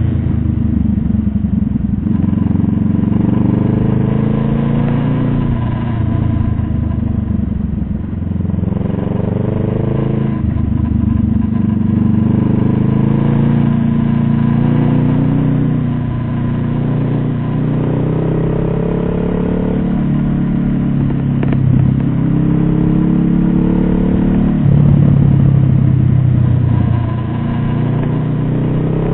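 A motor vehicle's engine running under way, its pitch rising several times and dropping back between the rises, as when accelerating through gear changes.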